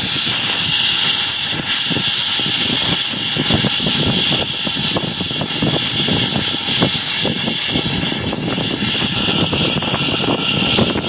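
Cab noise of S.P.&S. 700, a 4-8-4 steam locomotive, under way: a loud, constant hiss with a thin steady high whine, and irregular knocks and rattles throughout.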